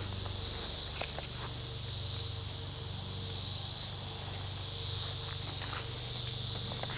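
High-pitched insect chorus that swells and fades in even pulses about every second and a half, over a steady low hum.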